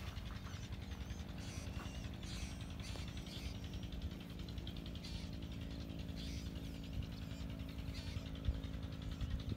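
Scattered bird chirps over a steady low mechanical hum and an uneven low rumble of wind or handling on the microphone.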